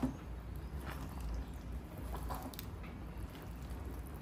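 Spoon stirring thick, creamy rice in a pan: short, soft squelches and scrapes every second or so over a steady low hum.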